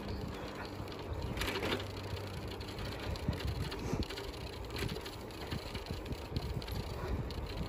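Wind buffeting the microphone with an uneven rolling rumble from riding along a paved path, likely on a bicycle. A brief brighter rustle comes about a second and a half in.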